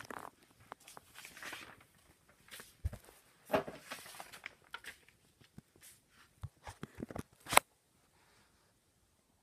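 Handling noise: irregular rustles, scrapes and clicks, ending in a sharp knock about seven and a half seconds in.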